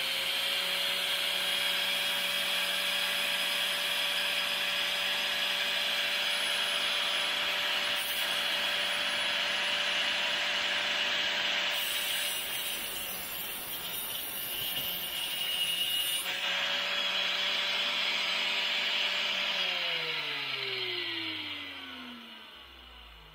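Angle grinder with a thin 1/16-inch cutoff disc running at full speed. A little before halfway it cuts into a steel coil spring for a few seconds with a harsh grinding hiss. Then it is switched off and winds down, its pitch falling near the end.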